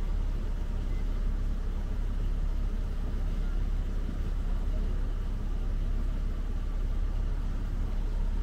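Coach bus engine idling while parked: a steady low rumble with no change.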